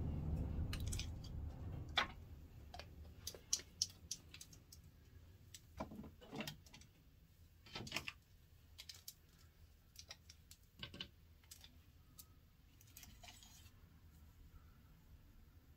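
Scattered light clicks, taps and clatters of small hard items being handled and rummaged through, irregular and fairly quiet. A low rumble at the start fades out over the first few seconds.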